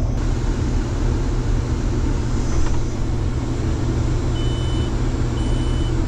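Combine harvester's engine running steadily, heard from inside the cab, with a deep steady hum under it. Near the end, two short high-pitched electronic beeps about a second apart.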